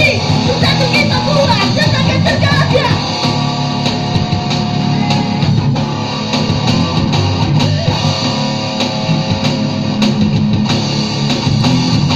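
Live rock band playing loud: electric guitars, bass and drums with cymbals, with a vocalist singing into a microphone over it.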